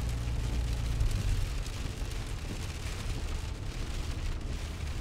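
Vehicle cab noise while driving in heavy rain: a steady low engine and road rumble with rain hitting the windshield.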